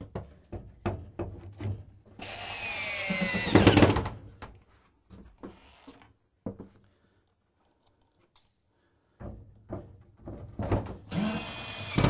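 Power drill driving screws through a wooden sauna backrest into the wall panel: a high motor whine about two seconds long whose pitch falls as the screw drives in, and a second run near the end. Short knocks and clatter of handling the wood in between.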